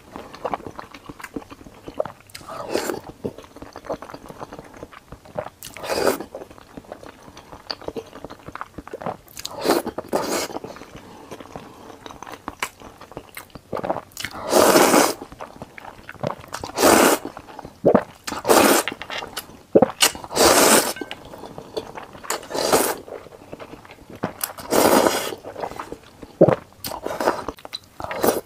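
A person slurping ramen noodles close to a clip-on microphone: about ten separate slurps, each up to about a second long, louder in the second half, with chewing between them.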